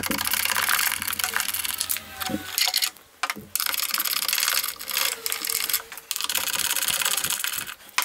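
A nut driver working loose the bolts of an ignition coil and resistor box in a car's engine bay, with metal scraping, rattling and clicking as the parts and wiring are handled. There are two brief pauses.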